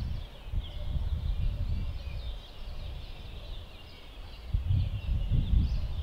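Many small birds chirping and twittering over a low, uneven rumble of wind on the microphone, which eases off a few seconds in and picks up again near the end.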